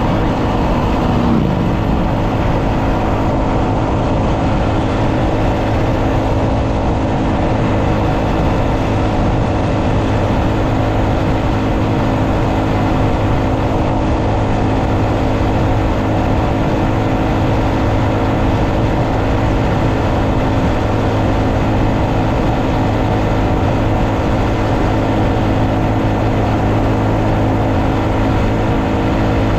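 2023 Honda Monkey's 124 cc air-cooled single-cylinder four-stroke engine running steadily at a cruise, heard from the saddle with wind and road noise. The engine note dips briefly about a second in, then holds steady.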